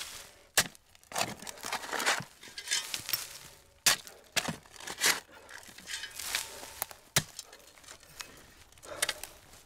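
Shovel digging into earth: the blade strikes in sharply three times, about three seconds apart, with scraping and rustling of soil between strokes.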